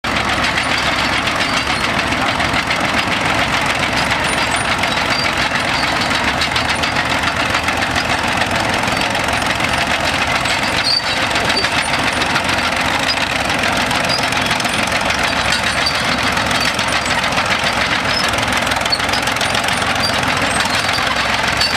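Caterpillar RD6 crawler tractor's three-cylinder diesel engine running steadily with a fast, even knocking beat as it tows a pull-type grader.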